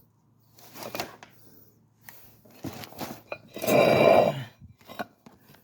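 Metal handling noises from a new brake disc being readied for fitting: a few knocks and clicks, then one loud, ringing metallic scrape about three and a half seconds in.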